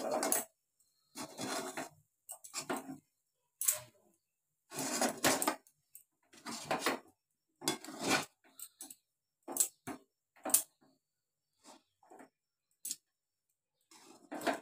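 Flat metal spatula scraping and stirring rice flour through hot water in an aluminium kadai, in short bursts of scrapes and clinks with pauses between them, as the flour is cooked into a thick dough.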